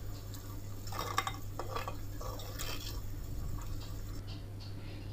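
Wooden spoon stirring and scraping thick tamarind-ginger curry in a clay pot, a few scraping strokes in the first three seconds, then only faint sounds. A steady low hum runs underneath.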